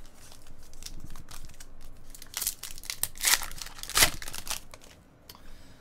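Foil trading-card pack wrapper crinkling as it is handled, with cards rustling. There are a few louder crackles around the middle, dying away near the end.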